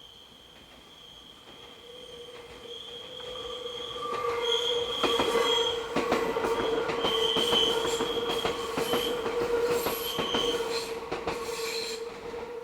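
Train wheels squealing as an electric train rounds a curve. It is a steady, piercing squeal on two held pitches, one middling and one high, that swells over the first few seconds. Through the middle it is loudest, with rapid clicking of wheels over the rails as the cars pass, and it eases near the end.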